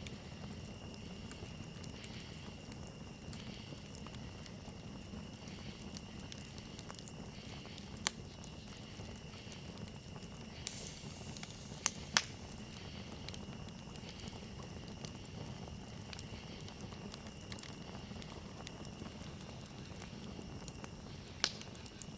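Campfire burning: a steady low rush of flames with scattered sharp crackles and pops. The loudest pops come about eight seconds in, a cluster around twelve seconds, and one near the end.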